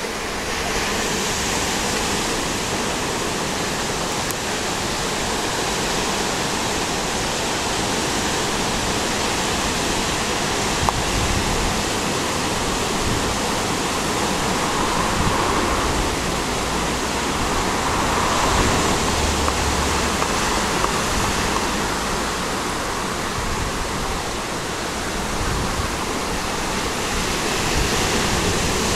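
Ocean surf breaking and washing up the beach, a steady rushing noise that swells a little now and then.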